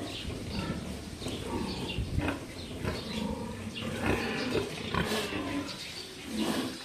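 Sows grunting in short, irregular calls, several overlapping, with one louder, sharper cry about five seconds in.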